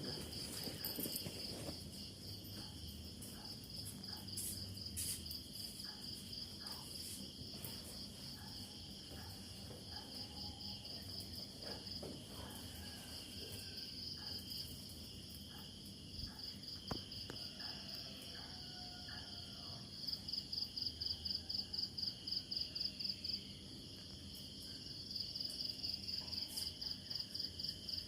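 Crickets chirping in a high, fast-pulsing trill. It grows louder and more distinctly pulsed about twenty seconds in and again near the end, over a faint low background rumble.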